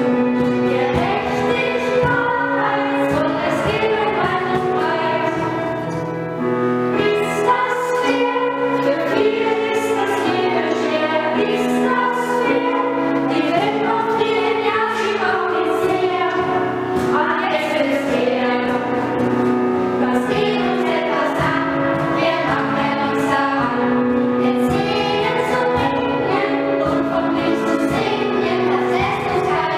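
A group of children singing a Sternsinger (star singers') Epiphany song together, in long held notes.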